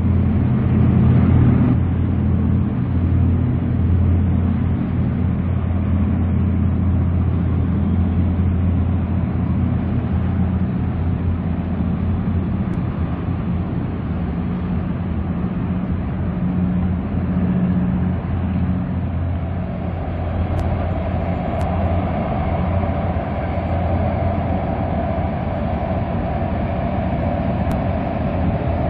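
A low, steady boat engine drone, strongest in the first two-thirds, with the higher whine of a Boeing 929 Jetfoil's gas turbines growing from about two-thirds of the way in as the foilborne jetfoil draws close.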